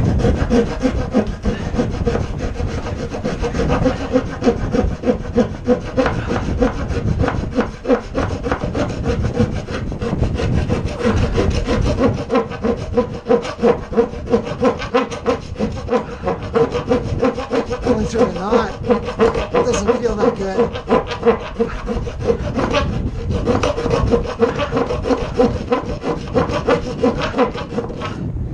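Handsaw cutting across a pine board, in steady back-and-forth strokes of about two to three a second.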